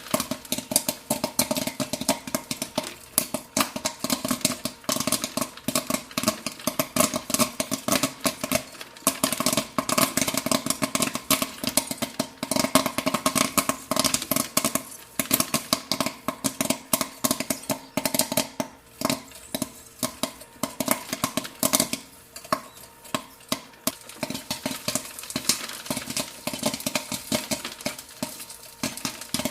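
Popcorn popping in rapid, irregular pops, many a second, over a steady hum.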